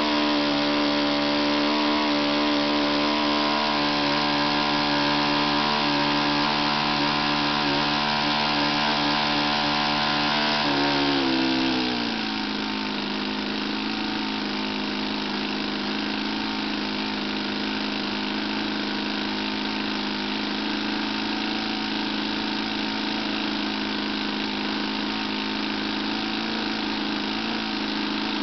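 Magnum 52 single-cylinder four-stroke glow engine on an RC airplane running steadily with its propeller turning during break-in, then slowing about eleven seconds in and settling into a lower, steady idle.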